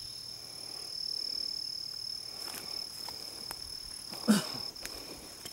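Crickets trilling in one steady high unbroken tone in summer woodland, with soft rustling of leaves and brush and a single sharp thump about four seconds in.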